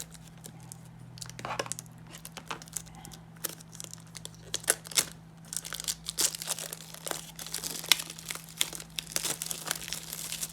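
Plastic wrapping and cardboard packaging of a 2013 Select baseball card box being handled and opened, with irregular crinkling and crackling that grows busier in the second half.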